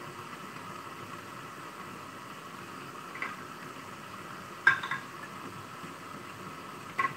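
Glass jugs and silicone spatulas knocking in a rice cooker's water bath while melted oil and shea butter are stirred: three short sharp clinks, the middle one loudest, over a steady faint hiss.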